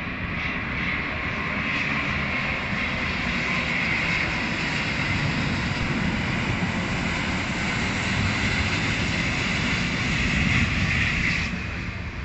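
Airbus A350 jet airliner on landing approach flying past low, its two Rolls-Royce Trent XWB turbofans making a steady rushing noise with a high whine. The sound builds to its loudest about ten seconds in, and the whine drops away sharply near the end.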